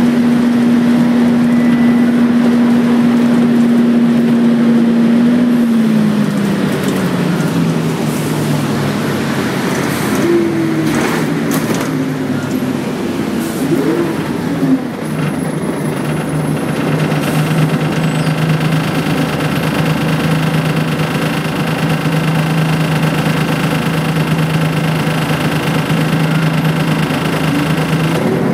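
Volvo B10BLE bus's rear-mounted diesel engine heard from inside the cabin while the bus drives. The engine note holds steady, drops in pitch about six seconds in, wavers up and down for a few seconds, then settles to a steady lower drone, with some rattles around the middle.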